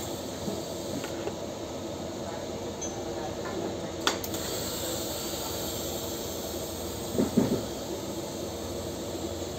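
Steady hiss and hum of TIG welding equipment, with one sharp click about four seconds in and a short low sound around seven seconds.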